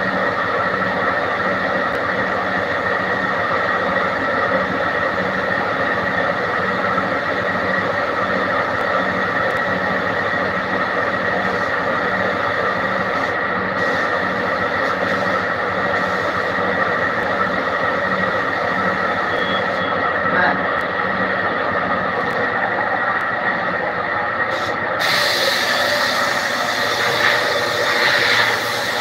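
Air compressor running steadily for spray-finishing, with a low throb about twice a second. About 25 seconds in, a louder hiss of spraying air joins it.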